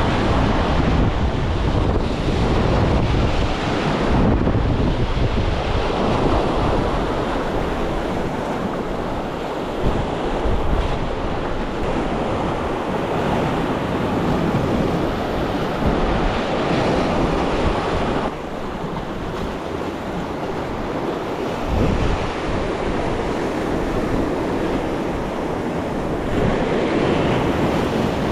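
Sea waves washing, with gusting wind rumbling on the microphone. The wind swells and eases every few seconds.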